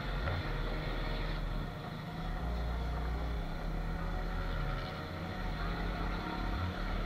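Motorcycle engine running at low speed in city traffic, recorded from the rider's camera, with a steady, uneven low rumble.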